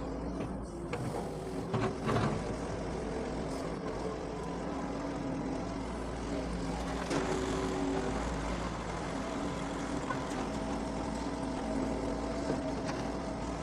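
Doosan DX140 excavator's diesel engine running steadily, with a few sharp knocks about two seconds in.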